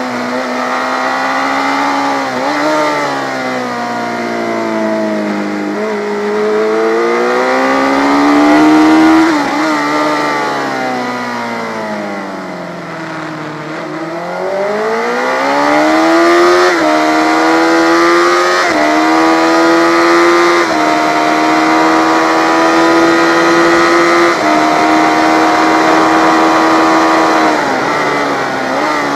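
Yamaha FZ600's air-cooled inline-four engine under race use, heard from an onboard camera: revs falling on braking into corners and rising again on the way out, then climbing through several gear changes, each a brief step in pitch, along a straight in the second half.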